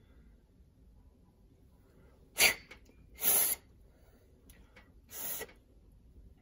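Three short puffs of blown air hissing over the air relay valve's parts to clear them: the first sharp and loudest, the second longer, the third softer.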